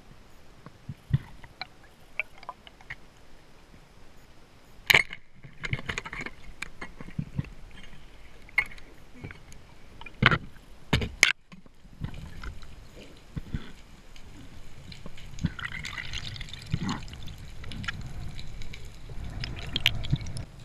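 Underwater sound from a diving camera: scattered sharp clicks and knocks, a few of them loud, then a thicker rush of moving water through the second half, growing louder toward the end.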